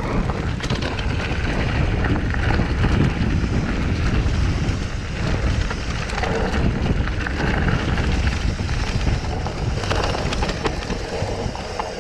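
Mountain bike descending a rough dirt trail: tyres rumbling over roots, stones and leaves, the bike rattling with frequent small knocks, and wind buffeting the microphone.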